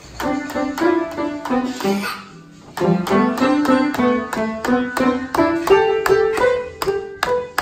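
Upright piano keys struck unevenly by a toddler, single notes and small clusters ringing in a rapid, irregular stream in the middle of the keyboard, with a brief pause about two and a half seconds in.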